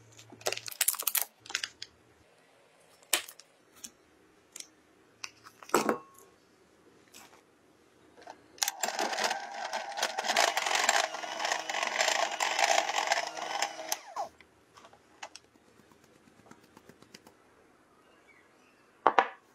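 Crinkling and clicking as a foil-wrapped packet is handled and opened, then an electric hand mixer runs steadily in a glass bowl for about five seconds, then a sharp knock just before the end.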